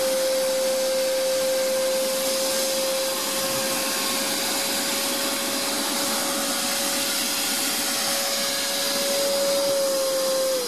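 Canister vacuum cleaner running steadily, a high motor whine over a strong rushing hiss, its hose sucking a string on a small plastic bag through a buried cable conduit. Right at the end it is switched off and the whine starts to fall.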